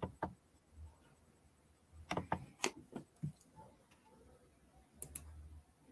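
Faint, scattered short clicks and taps, a few close together about two seconds in and again near five seconds, over a low hum that comes and goes.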